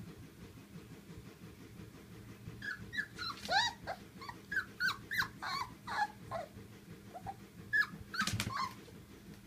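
Two 26-day-old Polish Lowland Sheepdog puppies play-wrestling, giving a string of short, high-pitched squeaks and yips. The calls come thickest from about two and a half to six and a half seconds in, with a few more near the end.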